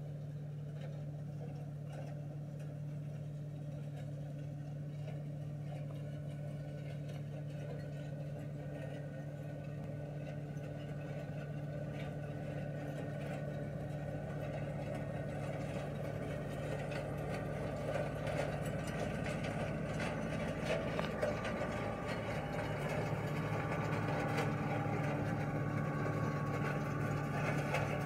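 Massey Ferguson tractor's diesel engine running steadily while driving a Perfect KD270 flail shredder, growing gradually louder as the tractor draws near, with faint scattered ticks.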